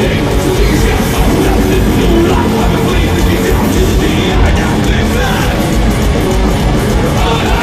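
Heavy metal band playing live at full volume: distorted electric guitars over fast, driving drums.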